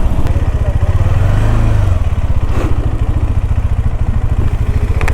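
KTM 390 Adventure's single-cylinder engine running at low revs, a steady, even pulse.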